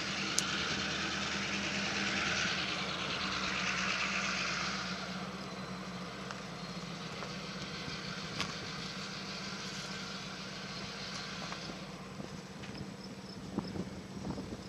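A steady low engine hum, with a louder hiss over it for the first five seconds that then dies away.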